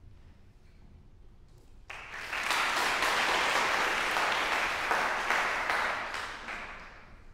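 Audience applauding in a concert hall: the clapping breaks out about two seconds in, holds steady for a few seconds, then dies away near the end.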